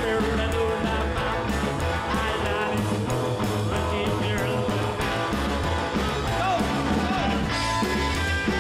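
Rock and roll music with a steady beat.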